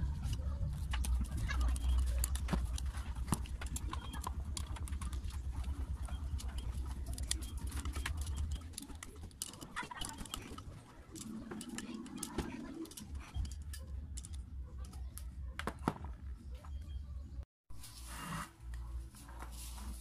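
Light clicks, taps and scrapes of a water pump motor's metal housing, end cover and fan being handled and fitted together on a tabletop. A low rumble sits underneath for the first half and stops about halfway through.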